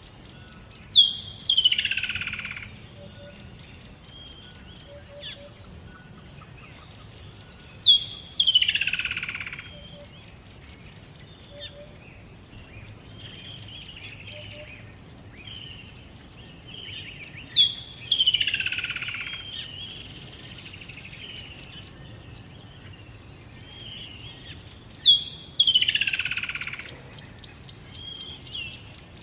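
Songbirds singing. One bird repeats a loud phrase four times, about every seven to eight seconds: a sharp high note followed by a falling, slurred whistle. Softer chirps and, near the end, a fast high trill from other birds come in between.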